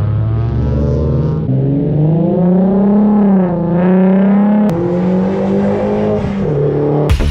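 Cars accelerating past one after another, engines revving, the pitch jumping and bending several times as each one pulls away.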